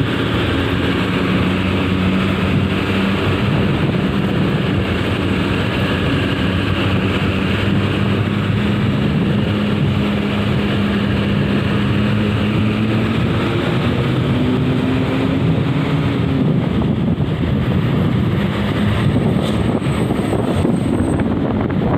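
Bus engine droning steadily under heavy road and wind noise; its pitch rises a little past halfway as it speeds up, then the engine fades into the rush of wind and tyres near the end.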